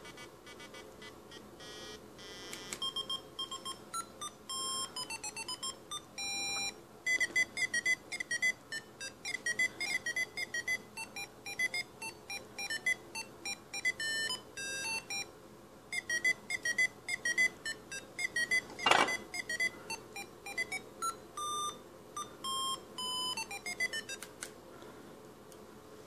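A MIDI tune played back by an AVR microcontroller through a small loudspeaker as a quick run of short, buzzy electronic beep notes, with some falling runs of notes. A single sharp knock sounds about two-thirds of the way through.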